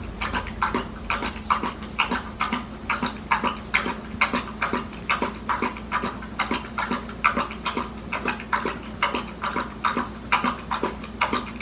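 A dog lapping water from its bowl: a steady run of wet laps, about three to four a second.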